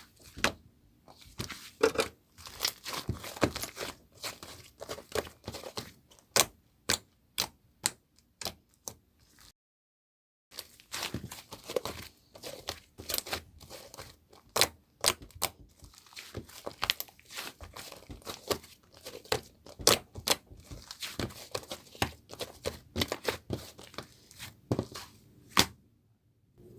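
Crinkly paper or plastic being handled: irregular rustling with many sharp crackles, cut off by about a second of dead silence just before ten seconds in.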